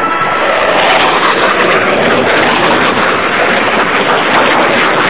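Tornado jet making a low, fast pass, its engines giving loud, steady jet noise.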